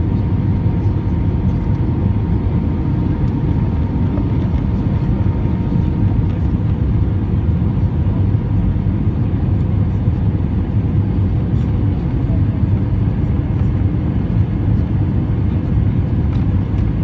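Steady rumble of engine and airflow noise inside an Airbus A320's cabin in flight, deep and unchanging, with a faint steady hum that fades out about halfway through.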